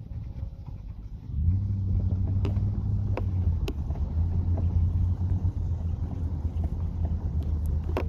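Vehicle engine rumbling under load during a tow-strap recovery in snow. The low drone steps up about a second and a half in and then holds steady, with a few sharp clicks in between.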